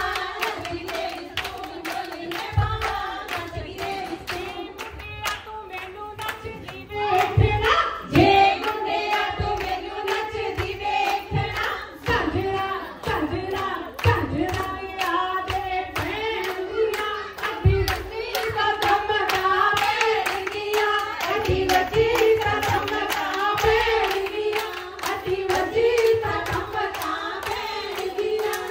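Voices singing Punjabi boliyan over steady rhythmic handclapping, in giddha style.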